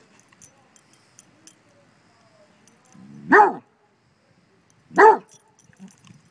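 Basset hound barking twice, about a second and a half apart.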